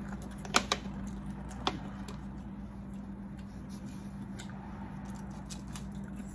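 Cooked sea snail shells clicking against each other as one is picked from a tray: two sharp clicks about half a second in and another just before two seconds. Then come faint small clicks as the snail meat is worked out of its shell by hand, over a steady low hum.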